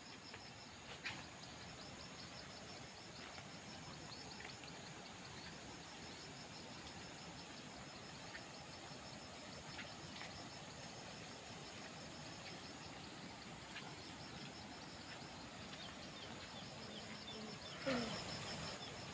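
Faint outdoor ambience of insects: a steady high drone with a fast, evenly repeating high chirp. A single click comes about a second in, and near the end there is a short, louder sound that falls in pitch.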